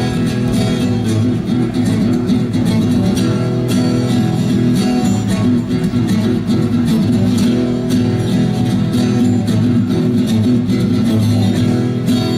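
Live band playing an instrumental passage between sung lines, with guitar to the fore.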